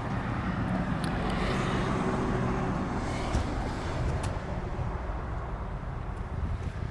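Motor vehicle traffic noise, with an engine rumble that swells over the first few seconds as a vehicle goes by, then eases off.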